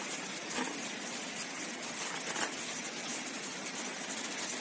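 A kitchen knife cutting through a banana stem, a few soft cuts over a steady background hiss.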